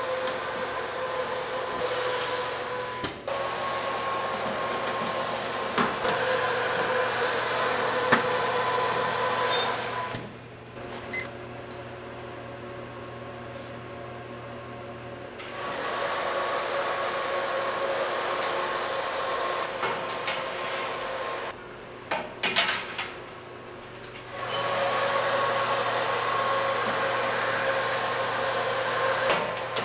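Convection oven fan running with a steady hum, broken by a few light metallic clanks of baking trays being slid onto the oven racks.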